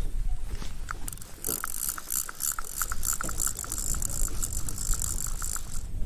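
Small wakasagi fishing reel winding in line: a rapid run of mechanical clicks with a high whirr, starting about a second in and stopping just before the end.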